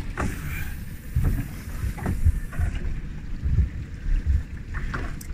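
Wind buffeting the microphone in irregular low gusts, over the wash of sea water around a small boat.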